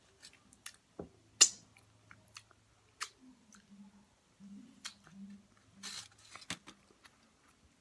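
Close-up chewing and wet mouth sounds of someone eating a burrito, with scattered short sharp clicks. The loudest is a single sharp click about one and a half seconds in.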